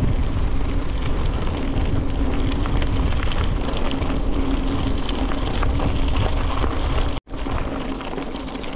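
Bicycle ridden along a rough trail: wind noise on the microphone and tyre rumble with fine crackling, over a steady low hum. The sound cuts out for an instant about seven seconds in.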